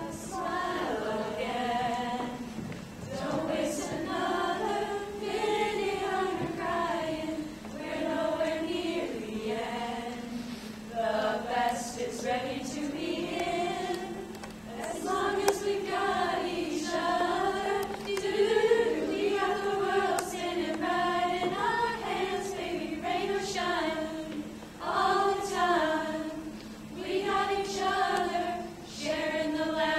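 A group of girls singing together a cappella, held and gliding notes with no instruments.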